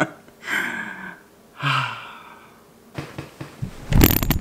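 Two heavy, emotional breaths through the hands over the mouth, then clicks and loud low bumps of the camera being handled near the end.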